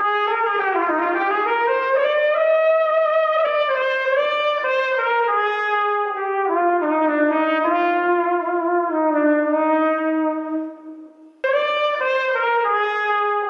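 Schagerl K-610L B-flat cornet with a Carol Brass mouthpiece, playing a smooth, connected melody in a soft tone. About ten seconds in the notes fade away, and a moment later the playing starts again abruptly.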